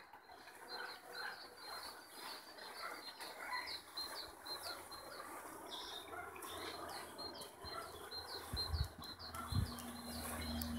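Small songbirds chirping faintly, one repeating a short high note about three times a second, with other scattered chirps. A few low thumps come near the end.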